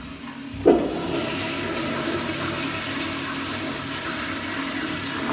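A toilet flushing: a sudden loud rush of water about a second in, then a steady rush of water as the bowl drains.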